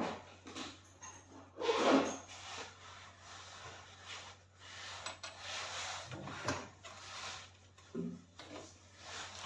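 Irregular rubbing and scraping with a few sharp knocks, loudest about two seconds in.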